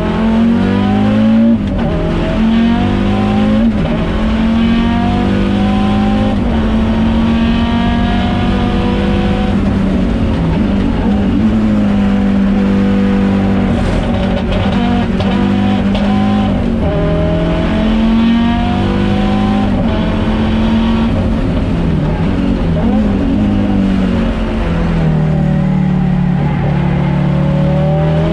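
Audi Sport quattro S1 Group B rally car's turbocharged five-cylinder engine driven hard. The revs climb and fall repeatedly through gear changes and lifts off the throttle.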